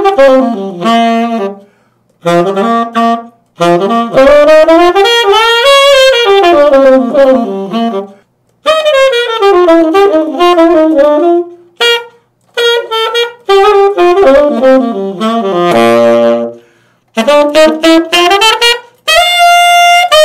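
Tenor saxophone with a new Borb Oliver mouthpiece, played solo as a tone test: flowing melodic phrases that run up and down, broken by short pauses for breath. A low, airy note sounds about three-quarters of the way through.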